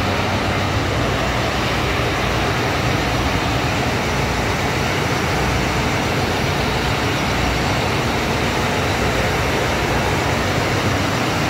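PR22 diesel locomotive standing at the platform with its engine running: a loud, steady rumble and hiss that holds unchanged throughout.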